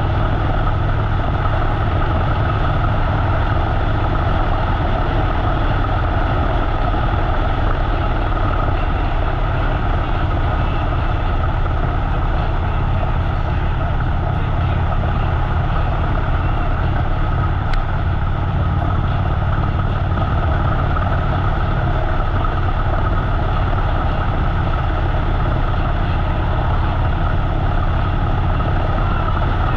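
Harley-Davidson V-twin motorcycle engine running steadily at cruising speed, heard from the bike-mounted camera with road and wind noise.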